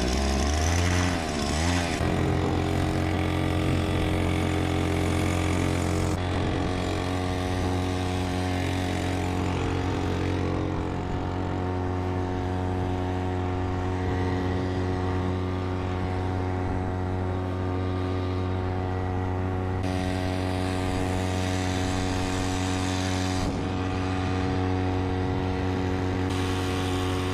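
3.5 hp two-stroke outboard motor running steadily. Its pitch wavers for the first couple of seconds, then holds an even note.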